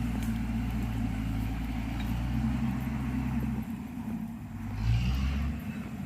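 Diesel engine of heavy road-repair machinery running steadily. About three and a half seconds in it drops off, swells briefly near five seconds, then falls quieter again.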